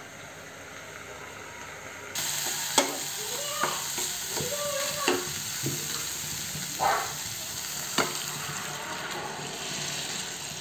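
Chopped tomatoes frying in oil in a pan: a steady sizzle that starts abruptly about two seconds in, with a spatula stirring and knocking against the pan several times.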